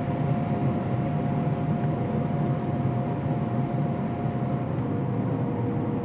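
Combine harvester running while harvesting corn, heard from inside its cab: a steady drone of engine and machinery, with a steady whine over it that drops lower near the end.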